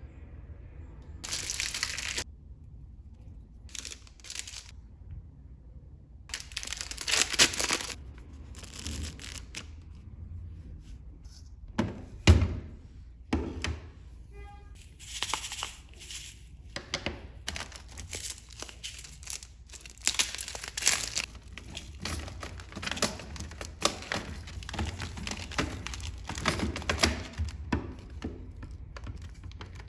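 Packaging being handled and unpacked: repeated crinkling and rustling with some tearing, and a sharp thud about twelve seconds in.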